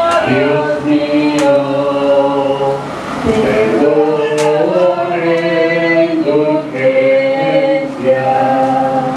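Procession crowd singing a Spanish religious hymn together, slow held notes stepping from one pitch to the next.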